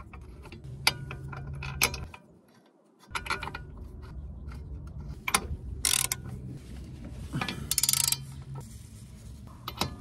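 Hand ratchet clicking in short rapid runs as it drives the hub assembly's mounting bolts back in, between scattered metallic clinks of socket and bolts. A brief near-silent gap comes about two seconds in.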